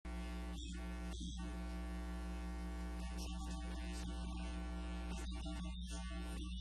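Steady electrical mains hum with a buzz on top, running unchanged at an even level.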